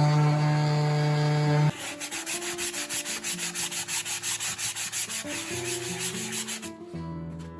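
Genmitsu 3018-PROVer desktop CNC router working: a loud steady spindle-and-motor hum. Then, about two seconds in, the cutter rasps rhythmically, about five strokes a second, while the motor tones shift in pitch as the machine moves.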